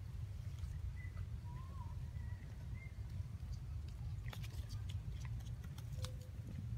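A steady low rumble on the microphone, with a few faint wavering chirps about one to three seconds in and scattered small clicks a little later.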